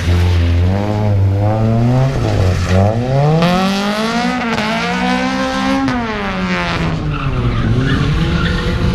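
Car engine revving hard through a motorkhana course, its pitch rising and falling with each burst of throttle and dropping sharply about six seconds in. Tyres skid and squeal as the car is thrown through the turns.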